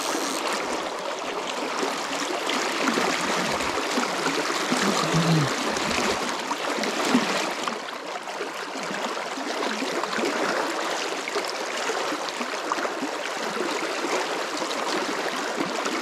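A shallow trout creek rushing over riffles close by, a steady, even wash of running water.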